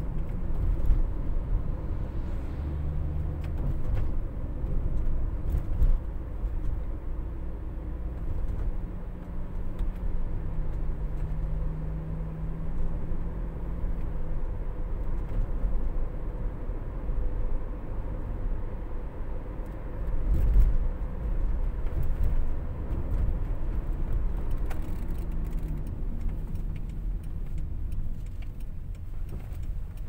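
Engine and tyre noise heard inside the cabin of a 70-series Toyota Noah minivan running downhill. Its engine note holds steady and then steps to a new pitch a few times, as gears are chosen in the seven-speed sequential mode and the engine does the braking. A brief louder low rumble comes about two-thirds of the way through.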